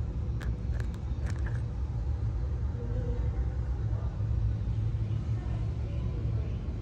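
A low, steady background rumble, with a few faint clicks between about half a second and a second and a half in.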